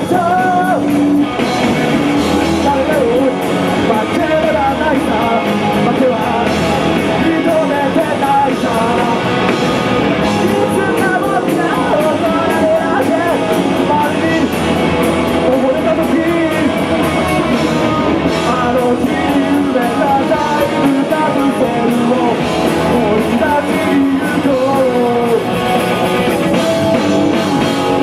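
Rock band playing a punk-rock song, with guitar and a sung vocal line over a steady beat.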